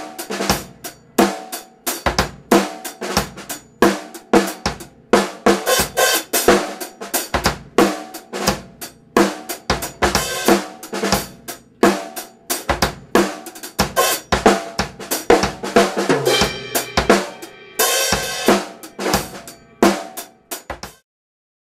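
Acoustic drum kit played solo in a funk groove: kick drum, snare, hi-hat and cymbals in a dense, steady rhythm. The playing stops near the end.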